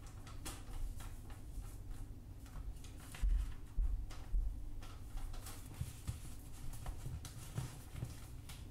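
Origami paper rustling and crinkling as hands fold and crease it, with three dull thumps between about three and four and a half seconds in.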